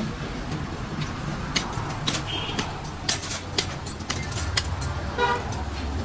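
Butcher's cleaver chopping into a hanging mutton carcass: a series of sharp chops roughly half a second to a second apart, over a steady low rumble. A short vehicle-horn toot about five seconds in.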